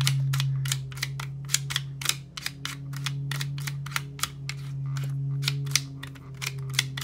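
Tiles of a QiYi 15-puzzle sliding puzzle being pushed rapidly back and forth in their frame, quick irregular clicks and clacks at about four a second as each tile knocks into place, while the puzzle is scrambled. A steady low hum runs underneath.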